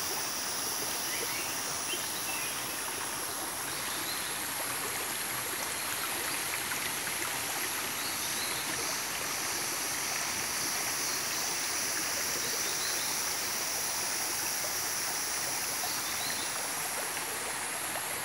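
Shallow rocky forest stream running steadily over stones. A steady high-pitched drone runs through it.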